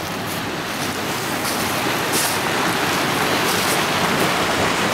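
Small mountain stream rushing over rocks and a little waterfall: a steady hiss of falling water that grows a little louder about two seconds in.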